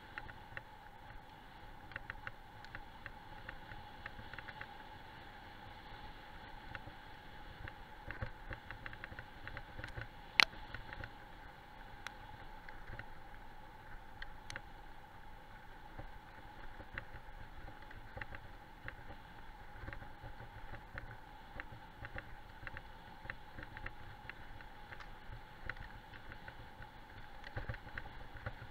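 Wheels of a dog-drawn training rig rolling over a gravel road, with a steady rumble and many small clicks and rattles, heard through a camera mounted on the rig. One sharp click about ten seconds in.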